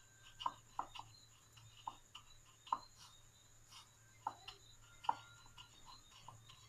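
Dry breadcrumbs being pressed and rolled onto a potato ball by hand in a ceramic plate: faint, irregular light ticks and crumb rustles.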